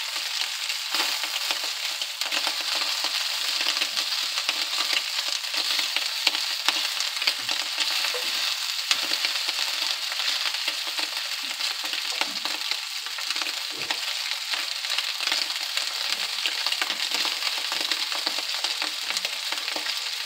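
Pieces of cut Italian sausage sizzling as they sear in a hot wok on a gas flame, a steady hiss. A wooden spatula scrapes and turns the pieces against the pan.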